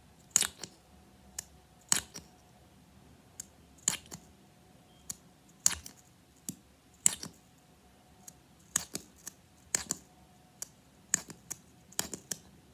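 e.l.f. lip gloss wand repeatedly pulled out of its tube and pushed back in, each closing giving a sharp click. About a dozen clicks, some in quick pairs, roughly one a second.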